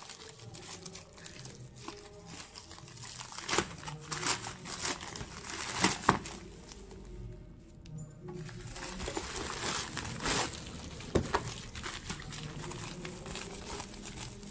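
Plastic bubble-lined mailer bag crinkling and tearing as it is pierced with a can opener, ripped open and handled, in irregular crackles with a short lull about halfway through.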